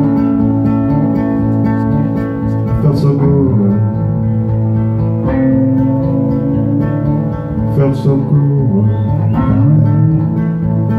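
Live acoustic and electric guitar playing together: acoustic guitar strummed under long, held electric guitar notes.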